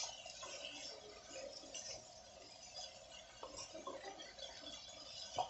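Wooden spatula stirring chopped spring onions in a metal kadhai: faint scraping and rustling with occasional light knocks against the pan, one a little louder near the end.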